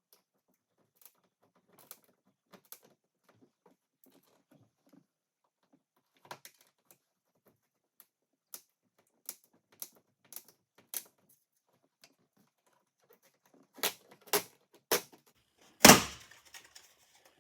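Scattered light clicks and taps, then three sharper clicks and one loud clack with a short ring near the end: the warning panel on a Honda Pioneer 1000-5's dash being worked loose from its drilled-out rivets and coming off.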